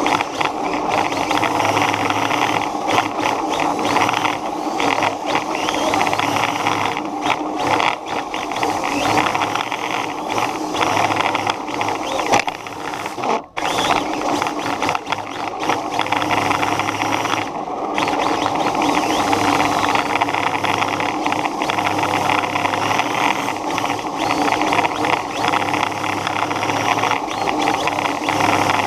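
Running noise of a radio-controlled car heard from a camera mounted on it: a steady rattling whir of motor, gears and tyres on pavement, with one brief drop-out about thirteen seconds in.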